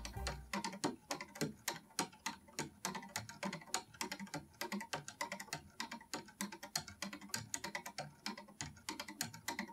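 3D-printed plastic escapement clock running, its pallets striking the escape wheel's teeth in rapid, uneven clicks, several a second, as the falling weight drives the wheel against the swinging pendulum. Background music fades out in the first half second.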